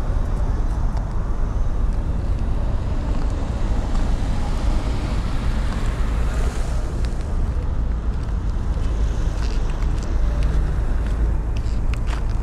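City street ambience: a steady low rumble of passing traffic, with a vehicle's hiss swelling and fading about six seconds in and a few footstep clicks near the end.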